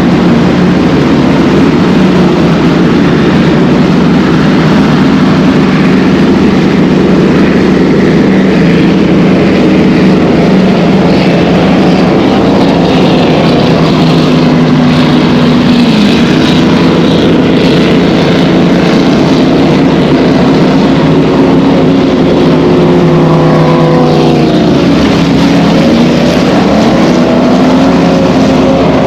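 Motorboat engines running at speed on open water, a loud steady drone with no break. About three quarters of the way through, the engine pitch sweeps down and then climbs again.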